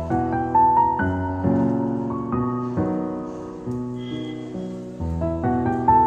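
Background piano music: a gentle melody of struck notes over a slowly changing bass.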